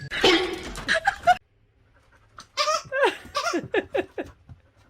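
A short loud noisy burst, then after about a second's pause a person laughing in several bursts that fall in pitch.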